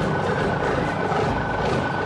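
Steady mechanical engine noise, like a construction machine running, with one high tone held throughout, mixed with background music.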